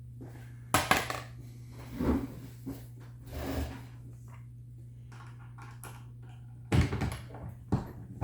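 Brass 38 Special cartridges clinking and knocking as they are handled and set down, in a few separate clatters with the busiest one near the end.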